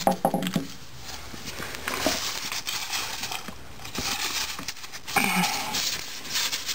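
Metal parts of a 4L80E automatic transmission's gear train clicking and scraping as the splined shaft is worked by hand out of the aluminium case. There are sharp clicks about two and four seconds in, and two short pitched sounds, one at the start and one about five seconds in.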